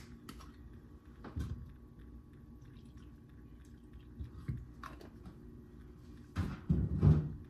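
Kitchen handling sounds as milk goes into a blender jar: a plastic gallon milk jug's cap is twisted off with a click, and the milk is poured in with a few small knocks. Near the end comes a louder cluster of knocks and rustling.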